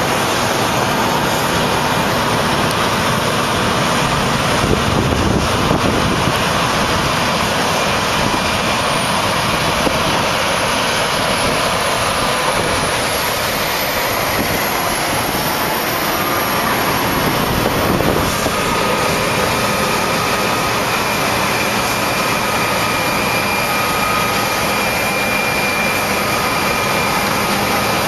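Combine harvester running steadily during wheat harvest: a loud, even machine noise. A faint high whistle wavers in the middle, and thin whining tones appear in the second half.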